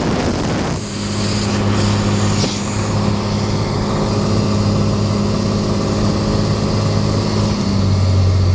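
Cessna 182's piston engine and propeller droning steadily inside the cabin on the approach to land, a constant low hum. The drone's tone changes near the end.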